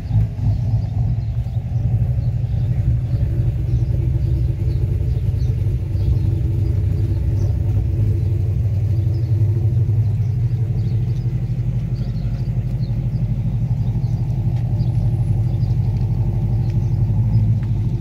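Holden Commodore V8 idling: a steady, low exhaust rumble.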